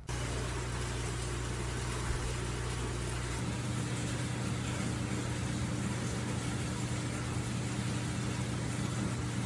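A steady machine hum over an even hiss, with a higher hum joining about three seconds in.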